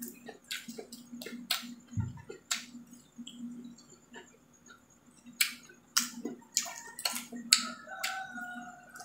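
Irregular sharp clicks and crackles of cooked shrimp shells being peeled apart by hand, mixed with chewing, the loudest crack coming about seven and a half seconds in.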